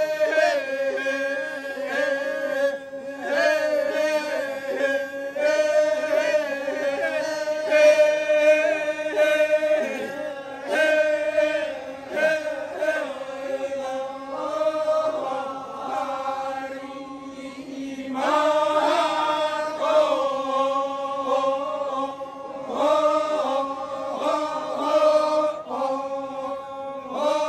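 Torajan badong funeral chant: a group of voices singing together in slow unison on long held notes, moving from one pitch to the next every few seconds.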